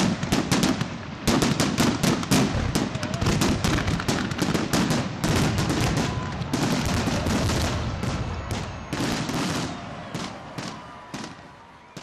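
Fireworks going off in a rapid, dense barrage of bangs and crackles, dying away over the last few seconds.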